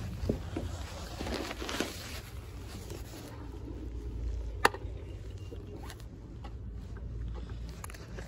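Wind rumbling on a phone microphone, with a rustle about a second in and a single sharp click about four and a half seconds in.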